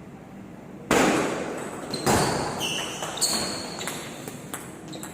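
Table tennis play: three loud sharp knocks about a second apart, from the ball and paddles striking, with a brief high-pitched ringing tone between the last two.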